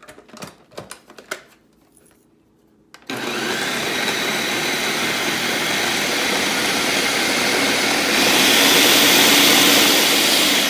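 Countertop blender pureeing chile broth: a few clicks and knocks as the lid goes on, then the motor starts about three seconds in and runs steadily, getting louder and higher about eight seconds in.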